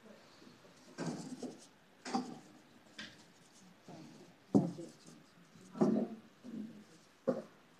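Short knocks and rubs, about six of them roughly a second apart, the sharpest about halfway through, with faint scratching between: handling sounds of brush and paper on a painting table.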